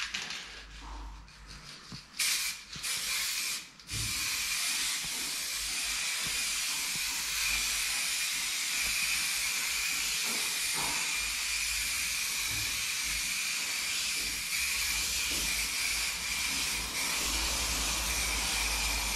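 Aerosol spray can hissing: two short squirts, then one long continuous spray from about four seconds in, with a faint thin whistle inside the hiss.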